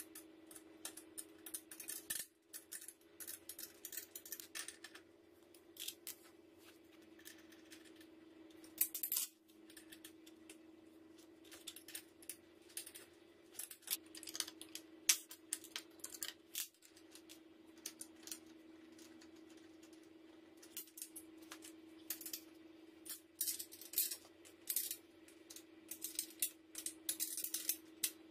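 Metal clinks and taps of bicycle crank parts and hand wrenches being handled and set down on a tile floor, irregular throughout, over a steady low hum.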